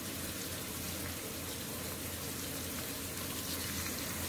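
Sliced onions frying in hot oil in an aluminium pot: a steady sizzle as they begin to brown.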